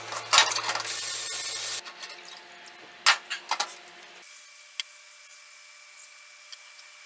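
Ultrasonic parts cleaner running with a harsh hiss and a low hum for about two seconds, then cutting off. A few clatters of parts and the lid being handled follow about three seconds in, then quiet room tone.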